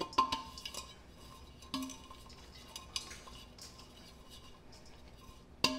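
Metal bundt pan knocked and tapped about over a sink to spread cocoa powder over its sides: a few scattered knocks, each with a short metallic ring, and a louder knock near the end.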